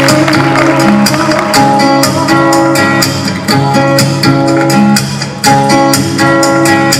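Instrumental intro of a pop song's backing track: plucked guitar-like notes over a steady beat, with no voice yet.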